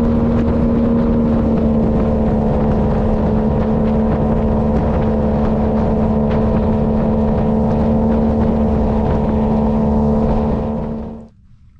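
Boat's outboard motor running at a steady cruising speed, a loud, even drone with a low hum, as a small boat moves across calm water. The sound fades out near the end.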